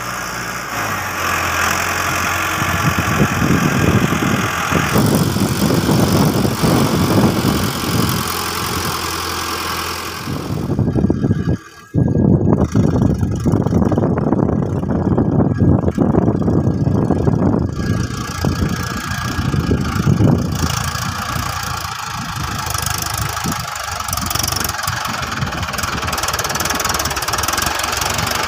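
Mahindra Arjun Ultra-1 555 DI tractor's four-cylinder diesel engine running as the tractor drives, with a brief drop-out of the sound about twelve seconds in.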